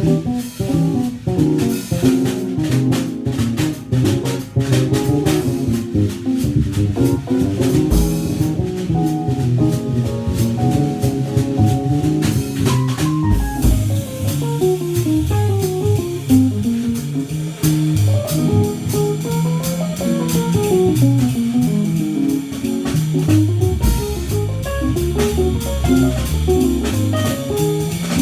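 Jazz trio of keyboard, bass and drum kit playing an instrumental tune, cymbals and drums keeping time under a walking low bass. Through the middle a melodic line climbs and falls in quick runs.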